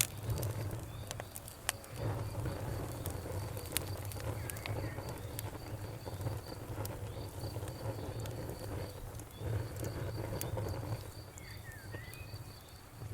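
Campfire burning with irregular sharp crackles and pops over a low steady rumble, while crickets chirp in an even pulsed rhythm in the background. A bird chirps briefly a few times.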